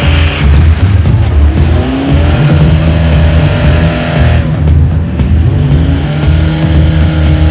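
Off-road 4x4 vehicle engines revving, with rising and falling pitch, under soundtrack music with a heavy pulsing bass. The sound changes abruptly about halfway through.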